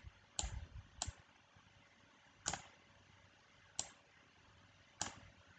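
Five single clicks at a computer, spaced irregularly about a second apart, over faint room noise.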